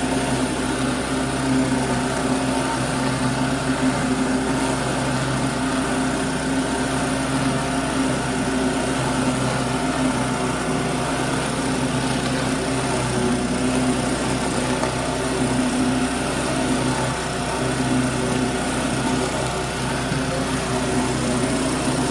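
Generac pressure washer's small gas engine running steadily at a constant speed.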